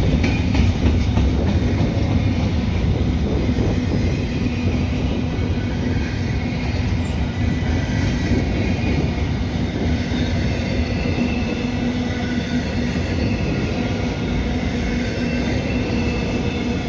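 Freight train rolling past: a steady, continuous rumble of cars on the rails, with thin high squealing tones from the wheels running through it.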